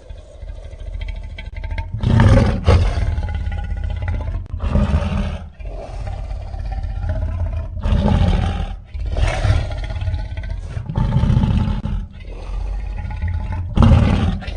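Creature sound-effect roars layered from lion, tiger and King Kong roar recordings. About six deep roars come one after another with short gaps, the loudest about two seconds in and near the end.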